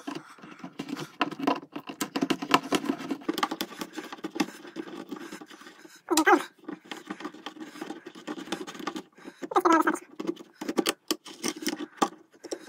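Leatherman ARC multitool's can opener cutting around a tin can lid in short levering strokes: a run of irregular scraping clicks as the blade bites through the tin.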